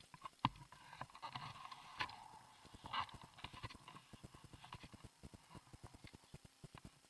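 Fast, uneven clicking and tapping of ski gear while skiing slowly through snow, with a louder knock near the start and another about three seconds in.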